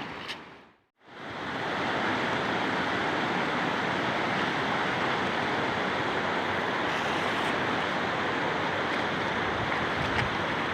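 Steady rushing of water. About a second in, the sound briefly fades out to nothing and comes back.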